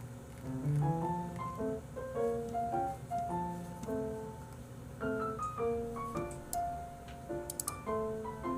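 Soft background piano music playing a light melody of short notes, with a few faint clicks near the end.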